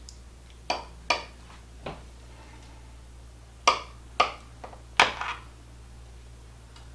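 Knife cutting down through a chilled layered dessert in a glass baking dish, its blade striking the glass in about seven sharp clinks, in small groups with a pause in the middle.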